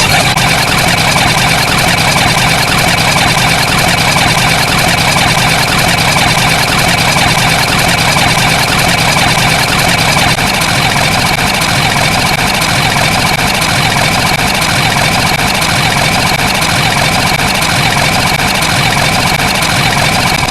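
A loud, steady, engine-like running noise with a constant high whine over it, unchanging throughout.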